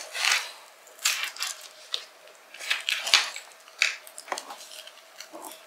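Kitchen knife cutting and scraping through the dry, papery skin of a whole onion on a plastic cutting board: a string of short, irregular crackling scrapes, with one dull knock of the blade on the board about three seconds in.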